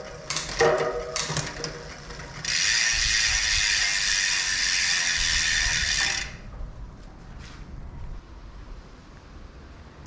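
DT Swiss 240 rear hub's ratchet freehub buzzing loudly and evenly as the rear wheel spins freely, from about two and a half seconds in until it cuts off suddenly about six seconds in. A few sharp clicks come before it.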